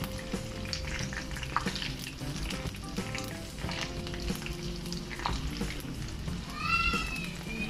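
Battered chicken pieces deep-frying in hot oil in a wok: a steady crackling sizzle, with a slotted spatula stirring and turning them. Near the end a short high tone rises and falls.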